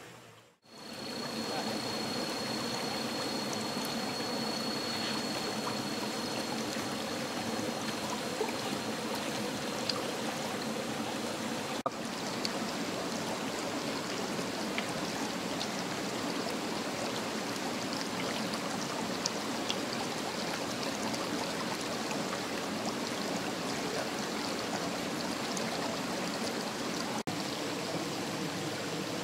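Stream water running steadily in a continuous rushing wash. A faint, thin high tone sounds for the first several seconds, with a few small clicks later on.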